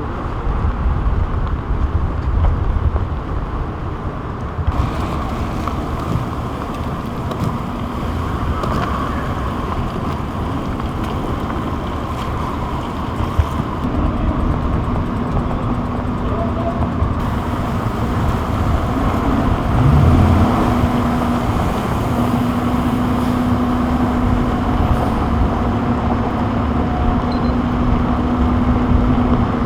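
Street traffic and vehicle engines running, a steady rumble with a low engine hum that sets in about halfway through.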